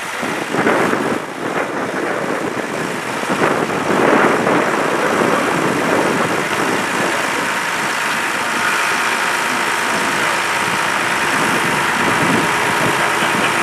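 Recovery lorry's diesel engine running steadily while driving its loading crane to lift the car, with a few louder surges in the first few seconds.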